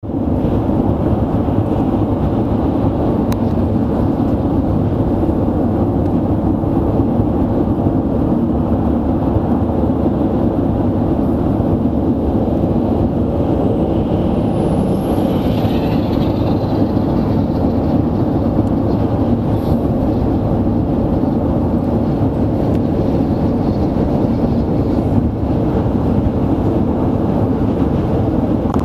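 Steady drone of a car cruising at highway speed, heard inside the cabin: tyre roar on the pavement mixed with engine and wind noise.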